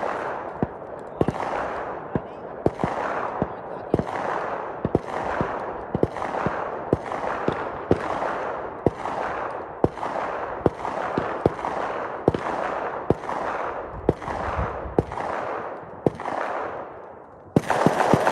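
Rifle fired in a long, steady string of shots, roughly one and a half to two a second, each crack trailed by a short echo. A louder, denser stretch of noise comes in near the end.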